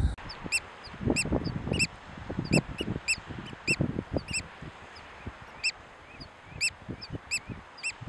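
Eurasian oystercatcher calling: short, high piping notes repeated irregularly, often in quick pairs, over low rumbling background noise.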